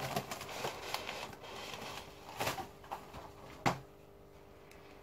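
A paper carrier bag rustling and crinkling as a knotted plastic fish bag is drawn up out of it, with scattered crackles; the sharpest and loudest crackle comes about three and a half seconds in, and it goes quieter after that.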